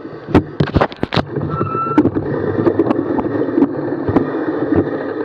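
Mountain bike riding over rough off-road ground: sharp rattling knocks in the first second, then a steady rumble of tyres and wind on the microphone, with a brief high squeal about two seconds in.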